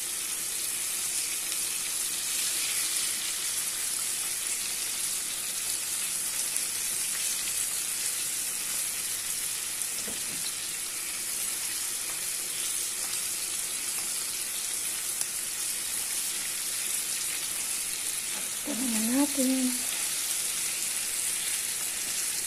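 Flour-dredged chicken wings frying in hot oil in a pan, a steady, even sizzle. About 19 seconds in there is a brief voice sound.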